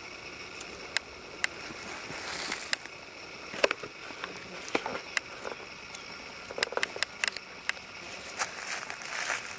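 A small knife scraping and trimming birch bolete stems, with irregular sharp clicks and snaps and short rustles of dry grass and leaves as the mushrooms are picked up and put down.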